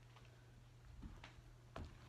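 Near silence: faint room tone with a steady low hum and a few soft clicks about a second in and near the end.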